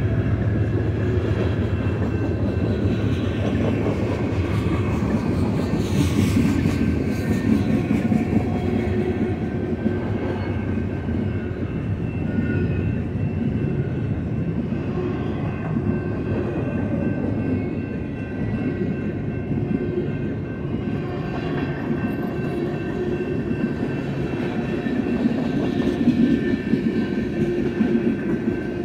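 Freight cars of a long BNSF manifest train rolling past at steady speed, steel wheels running over the rails with a clickety-clack. The tank cars, autoracks and boxcars go by with an even rumble throughout.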